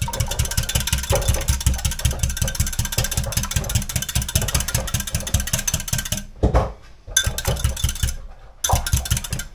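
Wire balloon whisk beating milk and an egg together in a glass measuring jug: fast, even strokes, with two short pauses near the end.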